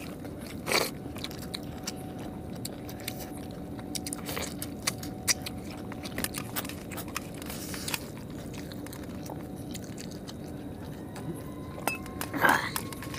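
Two people eating chicken curry and rice with their hands: chewing and biting into chicken leg pieces, and fingers mixing rice on steel plates, heard as scattered small clicks and smacks. A few short louder bursts stand out, one just under a second in and one near the end, over a steady faint hum.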